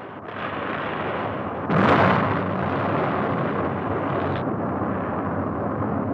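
An Atlas rocket booster exploding. A rushing noise builds, a sudden loud blast comes about two seconds in, and a long, steady rumble follows.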